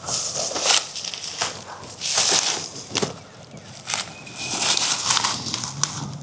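Irregular crunching and rustling of dry leaves and brush, in about eight uneven bursts, from someone moving or shifting on the forest floor.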